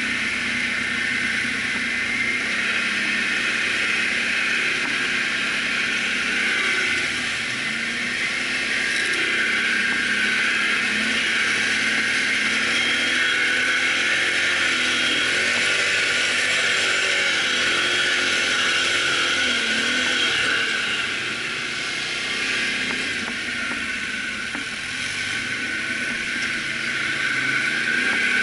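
Can-Am ATV engine running while riding on a dirt trail, its note rising and falling with the throttle over a steady rushing noise.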